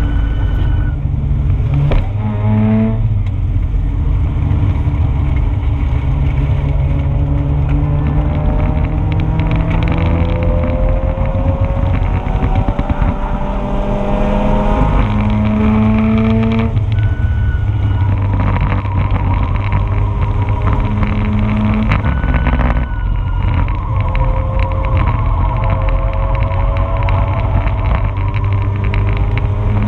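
Mazda RX-8's two-rotor rotary engine running hard on track: the revs climb steadily, then drop back several times and climb again. A constant rattle runs underneath.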